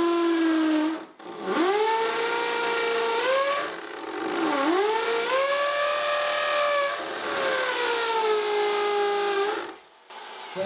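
Electric hand drill boring into a brick step under a staircase. Its motor whine rises and sags in pitch as the bit bites. It stops briefly about a second in, dips around the middle, and stops near the end.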